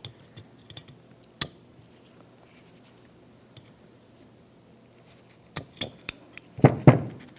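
Small plastic-and-metal clicks as needle-nose pliers squeeze the tabs of a plastic latch-rod clip and pull it off a door handle: one sharp click about a second and a half in, scattered light ticks, then a quick cluster of clicks and a duller knock near the end.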